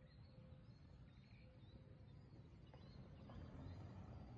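Near silence: faint outdoor ambience with a low background rumble and a few faint, distant bird chirps.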